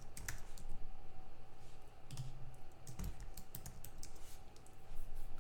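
Typing on a computer keyboard: a run of irregular, quick keystroke clicks.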